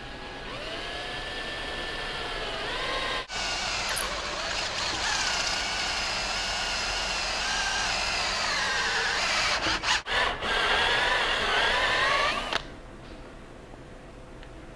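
Cordless drill spinning a counterbore cutter through a soft plastic fork guard, boring a large hole. The motor's whine wavers in pitch as it cuts, cuts out briefly twice, and stops about two seconds before the end.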